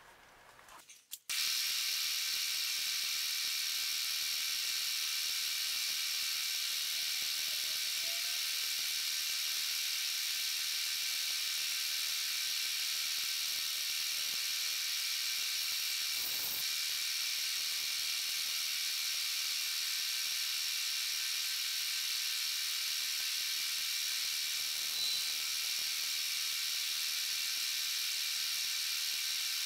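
Milling machine running with an end mill cutting a slot in 303 stainless steel: a steady high whir that starts abruptly about a second in and holds even.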